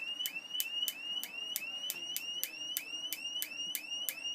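Spark gap of a small homemade Tesla pancake coil fed by an ignition coil, snapping about three to four times a second. Each snap is followed by a short high whine, rising slightly in pitch, from the Bedini self-oscillating circuit's bifilar coil.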